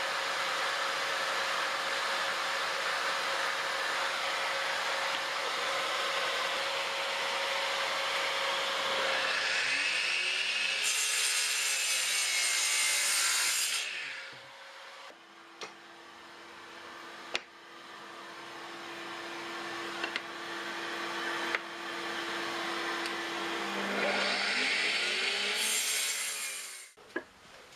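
Circular saw running and cutting through wooden boards, a loud, steady cutting noise. In the middle it drops to a quieter hum with a few sharp knocks, then cuts loudly again near the end.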